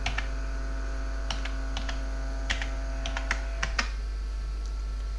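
Computer keyboard typing: about nine separate keystrokes spread over the first four seconds, then only a steady low electrical hum.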